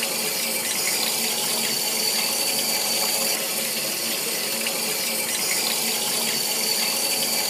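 Emergency eyewash station running steadily, its two streams of water spraying and splashing over a person's face.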